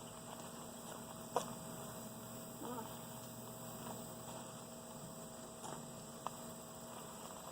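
A steady low hum, with a sharp click about one and a half seconds in and a fainter tick near the end.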